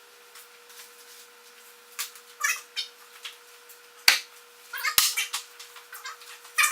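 Short, high-pitched animal calls, several times, with a couple of sharp clicks about four and five seconds in.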